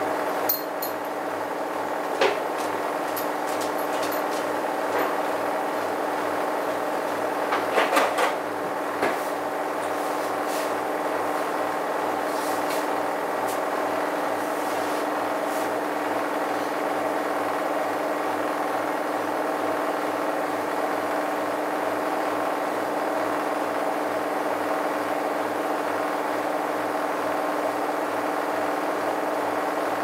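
Bosch washing machine running its rinse-only programme: a steady motor hum with a fast low pulsing, and a few short knocks from the drum in the first ten seconds, clustered about eight seconds in.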